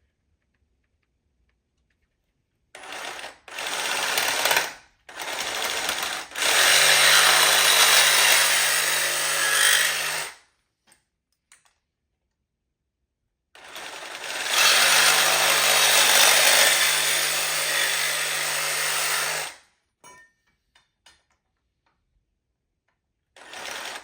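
Power saw cutting short lengths of conduit: a few short bursts, then two long cuts of about four and five seconds with a pause between them.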